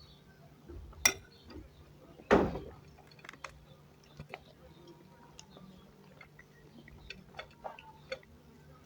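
Cutlery clinking and knocking against a plate while eating, in scattered small clicks, with a sharp clink about a second in and a louder knock about two and a half seconds in.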